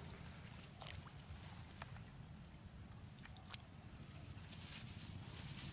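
Quiet outdoor field ambience: a steady low rumble with a few faint, sharp clicks and rustles scattered through it.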